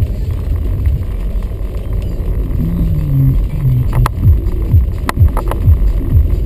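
Car interior in heavy rain: a steady low rumble of the engine and the wet road, with sharp irregular taps of raindrops striking the windshield from about four seconds in.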